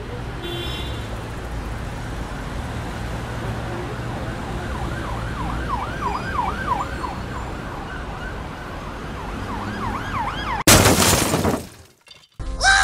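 A siren-like tone warbling quickly up and down, a few swings a second, over a steady noisy rumble with a low hum. About ten and a half seconds in, a short loud burst of noise, the loudest thing here, cuts it off.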